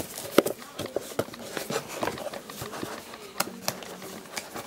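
Cardboard box being handled on a table: a series of irregular knocks, taps and rustles, the sharpest about half a second in.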